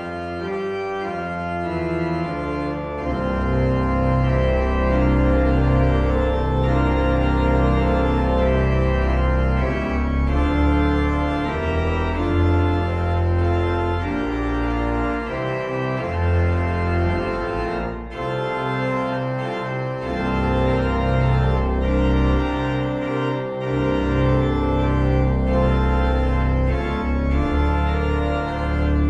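Organ music: slow chords held for a second or more at a time over sustained low bass notes, changing step by step.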